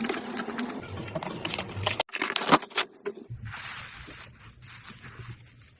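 Slime being worked by hand: a run of sticky clicks and crackles. The sound drops out briefly about two seconds in, then comes back as a softer crackle with scattered clicks.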